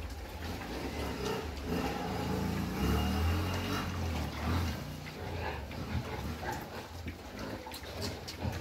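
Camborough pigs grunting as they root in their pen, with low grunts loudest about three seconds in.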